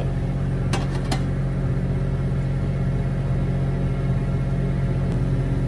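A stainless-steel lid is set onto a frying pan, with two short clinks about a second in, over a steady low mechanical hum.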